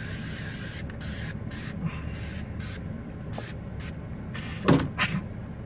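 Aerosol spray sunscreen hissing from a can, one longer spray followed by a run of short spurts, over a steady low hum in the vehicle's cabin. A brief louder sound comes near the end.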